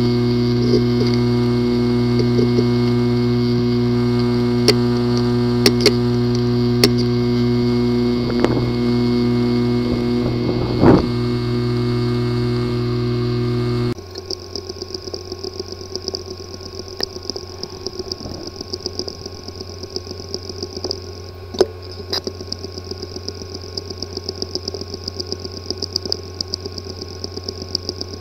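Sound samples of hard disk drives with a physically damaged disk assembly. The first drive hums steadily with a few scattered clicks. About 14 seconds in it cuts to a second drive clicking rapidly and repeatedly over a high steady tone.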